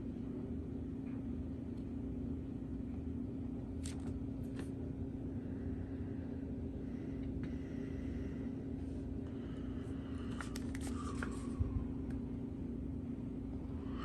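Quiet room tone: a steady low hum, with a few faint clicks and a brief patch of light rustling and clicking about ten to eleven seconds in as the paper owner's manual is held and handled.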